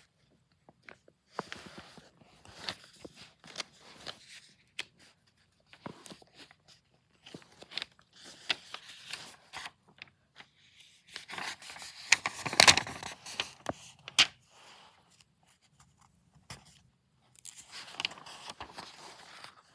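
Drawing strokes scratching on paper, coming in irregular bursts with small clicks and brief pauses, with a louder run of scratching about twelve seconds in.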